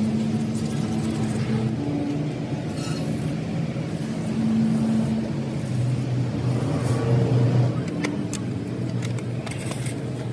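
A motor vehicle engine running in the background, its pitch rising and falling, with a few sharp clicks about eight seconds in.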